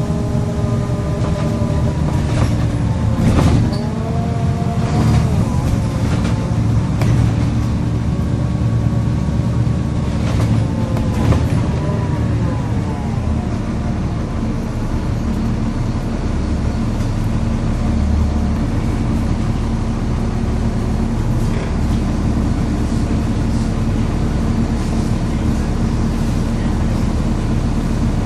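Volvo B7LA bus diesel engine under way, with a high whine (the turbo whistle) whose pitch falls and rises twice as the bus changes speed through its ZF automatic gearbox. About halfway through, the whine fades and the engine settles to a steady low hum.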